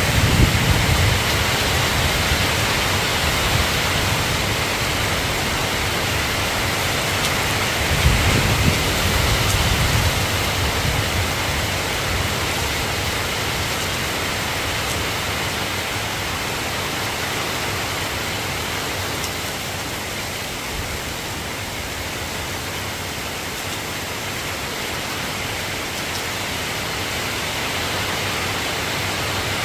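Steady rainfall hiss, with low rumbles of thunder at the start and again about eight seconds in.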